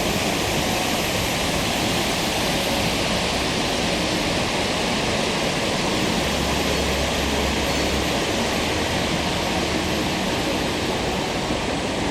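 Steady, heavy rush of Tegenungan Waterfall, running high after a big storm.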